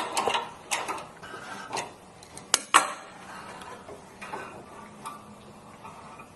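Metal clicking and clinking as the steam wand is worked loose from an espresso machine's steam valve, with two sharp clanks close together about two and a half seconds in, then quieter handling.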